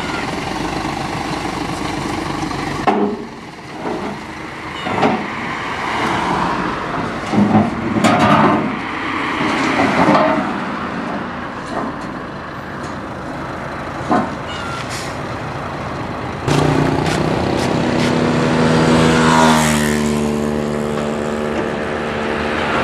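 Heavy steel trailer ramps being pulled out and dropped into place, clanging and banging several times over a running engine. Near the end a heavy engine starts and runs steadily, its pitch rising briefly.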